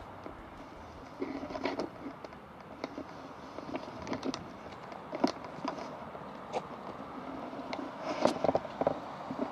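Footsteps in PVC rubber boots on a stony, gravelly path: uneven crunches and knocks of stones underfoot. They come in clusters about a second in, around five seconds and loudest near the end.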